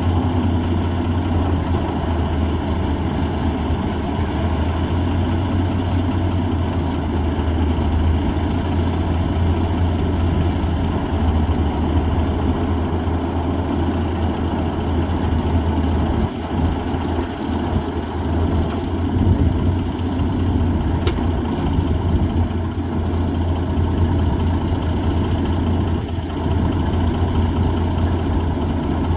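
Heavy truck's diesel engine, the M816 wrecker's Cummins six-cylinder, running steadily at a low, even speed while the wrecker works, with a brief drop in level about halfway through.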